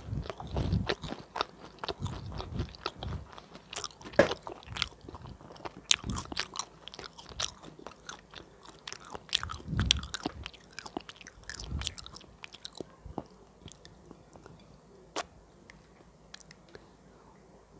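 Close-miked crunchy biting and chewing of fried banana cake (bánh chuối chiên), its crisp fried batter crackling. The crunches thin out to a few faint clicks over the last few seconds.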